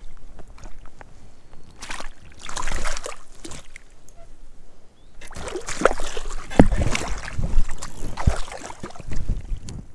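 Rainbow trout thrashing in a landing net at the water's surface, splashing water in two bouts: briefly about two seconds in, then longer from about five seconds in to near the end, with a few low knocks among the splashes.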